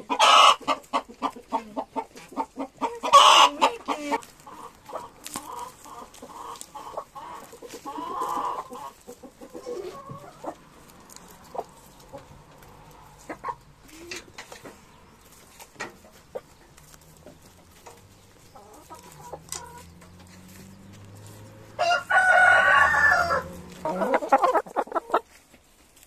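Hens clucking as they peck at greens on the ground, with many short sharp taps. Loud calls come near the start and about three seconds in, and one loud call lasting over a second comes near the end.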